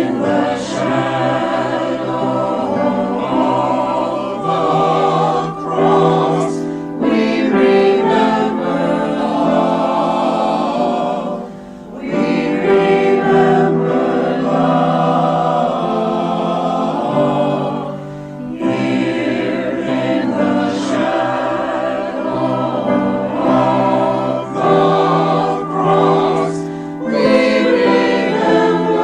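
Choir singing a sacred piece in sustained harmony, in phrases with short breaths between them.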